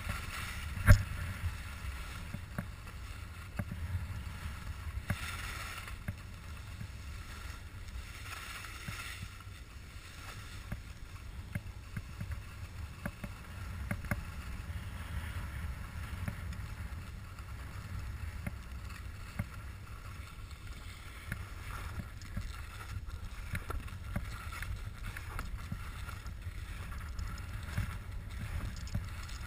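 Wind rumbling on the microphone during a downhill ride over packed snow, with a steady hiss and scrape of edges on the snow. A single sharp knock comes about a second in.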